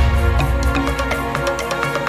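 Background music with a steady beat and sustained tones; the heavy bass drops out near the end.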